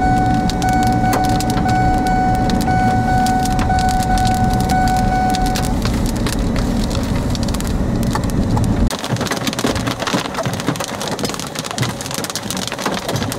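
Hail and rain striking a moving vehicle, with a dense clatter of small impacts over steady road noise, and a steady high tone for the first six seconds. About nine seconds in, the road noise stops abruptly and only the clatter of falling hailstones remains.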